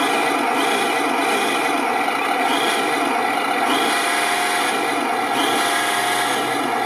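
HG P408 RC Humvee's onboard sound module playing its simulated engine sound loudly through the small speaker as the throttle is held, running steadily near top speed.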